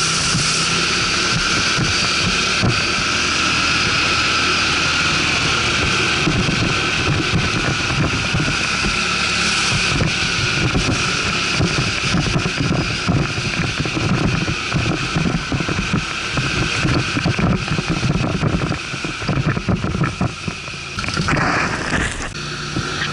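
ATV engine running steadily during a ride, with wind buffeting the microphone in irregular low rumbles. The engine pitch briefly rises near the end.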